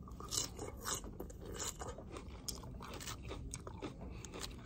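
A person chewing a mouthful of crisp lettuce, with soft, irregular crunches.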